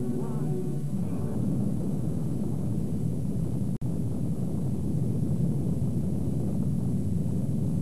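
Deep, continuous rumbling roar of a hydrogen bomb explosion. It cuts out for an instant about halfway through.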